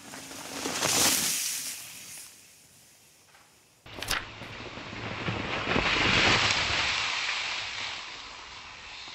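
Mountain bike tyres rolling and scrubbing through loose dirt corners with a rush of wind, swelling and fading twice. About four seconds in the sound changes abruptly, with a sharp click.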